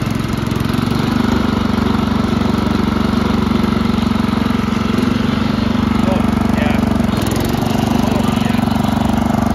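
1968 Sears Suburban 12 garden tractor's engine running at a steady speed while the tractor drives across grass.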